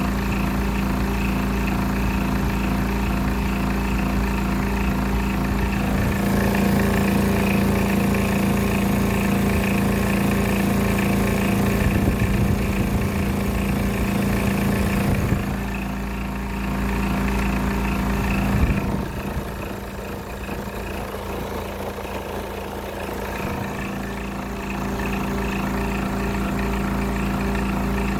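Window air conditioner running with a steady hum and a rhythmic wobbling pulse: its fan is unbalanced after the unit fell out of the window. It gets quieter a little past halfway and picks up again near the end.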